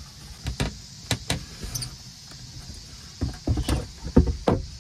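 Wooden under-bed storage lid lifted open and a vinyl-covered bed cushion shifted, giving a series of knocks and thumps: two sharp knocks about a second in and a cluster of heavier thumps in the second half.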